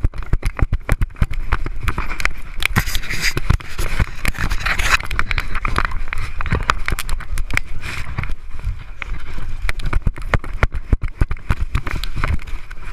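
Knocking, rattling and scraping from a GoPro Hero 2 in its case strapped to a Border Terrier, as the camera bumps and rubs against fur and harness while the dog runs and is handled. The knocks are dense and irregular throughout.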